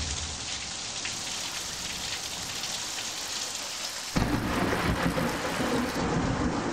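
Rain falling steadily, with a low rumble of thunder that comes in suddenly about four seconds in and keeps rolling.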